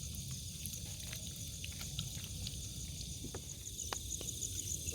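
Night insects, mostly crickets, chirping in a continuous high trill that pulses several times a second, over a low background rumble, with a few faint clicks.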